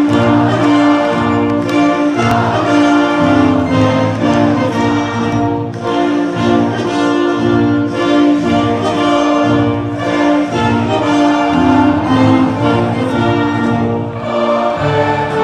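Orchestral music with strings and brass played over loudspeakers, a national anthem for the podium ceremony.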